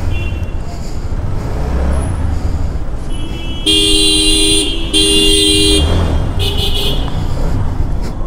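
Vehicle horns honking in traffic: two long blasts of a low two-tone horn a little before and after the five-second mark, with shorter high-pitched beeps before and after them, over a steady engine rumble.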